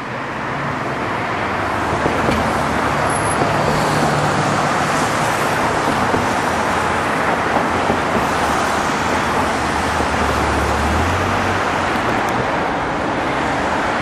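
Road traffic on a busy city street: a steady wash of tyre and engine noise, with a low engine drone from a nearby vehicle that stops about eleven and a half seconds in.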